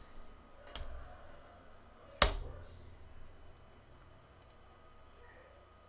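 A few sharp clicks with faint room noise between them, the loudest about two seconds in and carrying a short low thump, from a computer mouse and handling at the desk close to the microphone.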